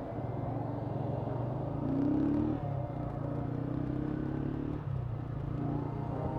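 Yamaha SZ motorcycle engine running steadily under way, its note rising and falling about two seconds in and again a little later.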